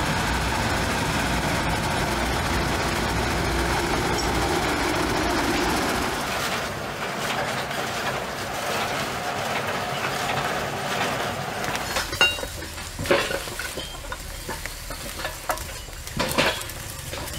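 Heavy vehicle's engine running with a steady low rumble, easing after about six seconds into a softer, even running noise. Near the end come several sharp knocks and clacks.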